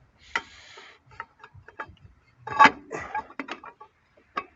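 Irregular metallic clicks and knocks from hand work on a drum brake's adjuster, with the loudest knock about two and a half seconds in.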